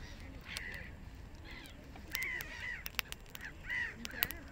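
Gulls calling over and over in short, harsh, arched calls, with sharp crackles and pops from a small twig fire. The loudest pops come about three and four seconds in.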